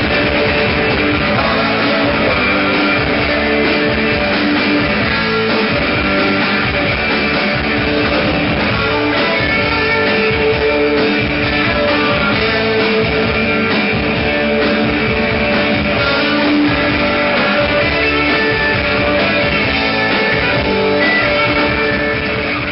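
A live rock band playing, with strummed electric guitars, as heard from within the audience at a club gig. The music begins to fade out at the very end.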